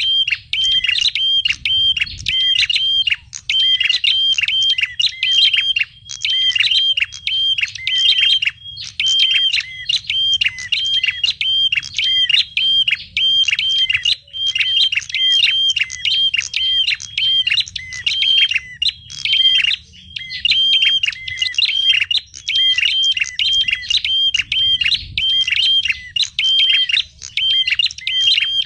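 Small birds chirping rapidly and without let-up, many short, sharp calls a second in an even, repeating pattern: a noisy small-bird lure recording of the kind played to draw birds in for trapping.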